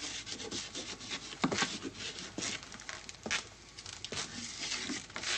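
Chalk writing a name on a blackboard: a run of irregular short scratches and taps.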